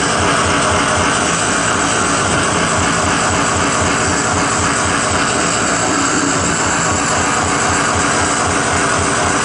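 Very loud hardcore techno played over a festival sound system, a fast steady kick drum at about three beats a second under a dense, harsh wash of sound.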